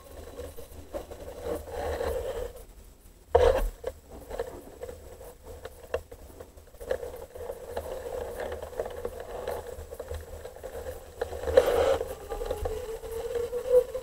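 Underwater recording under pond ice: a steady whining hum, like an electric train or trolleybus running, that slides up in pitch near the end; its source is unknown. Two loud crackling scrapes break in, about three seconds in and near twelve seconds.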